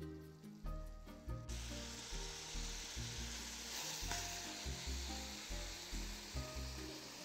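Beef mince sizzling as it fries in oil in a karahi, the hiss starting about a second and a half in. Background music with a steady bass line plays throughout.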